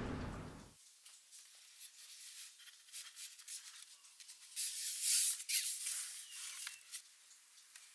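Hands rubbing and pressing a non-stick baking liner into an aluminium cake pan: dry scuffing and rustling of the sheet against the pan's sides, louder for a couple of seconds around the middle.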